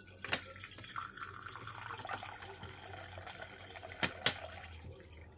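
A thin stream of soy sauce pouring from a bottle into a stainless steel measuring cup: a steady trickling splash that starts about a second in. Sharp clicks come near the start and twice close together near the end.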